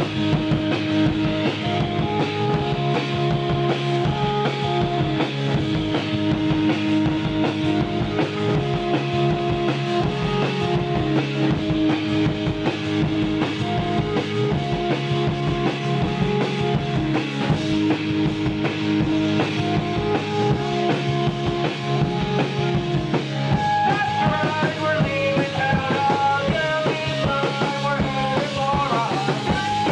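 Rock music: a drum kit played fast and steadily under a repeating low riff of held notes. A higher melody line comes in about three-quarters of the way through.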